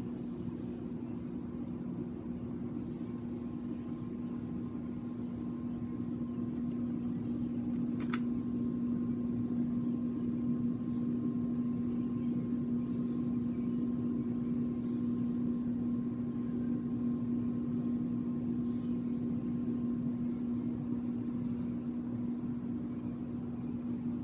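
A steady low mechanical hum, one constant tone with a faint high whine over it, and a single sharp click about eight seconds in.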